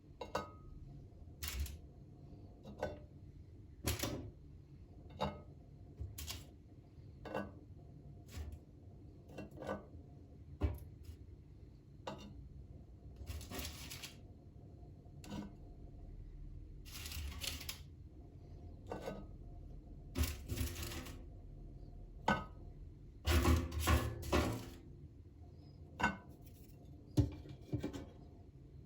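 Household objects being handled: scattered small clicks and knocks, a few longer brushing or rustling sounds, and a quick run of knocks a little over three-quarters of the way through.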